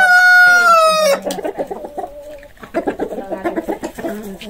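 A rooster crowing: the long held last note of the crow dips in pitch and ends about a second in. Softer, uneven clucking follows.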